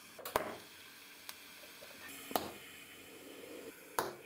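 TIG welding tacks on an exhaust pipe joint: a few sharp clicks as the arc is struck, over a faint steady hiss.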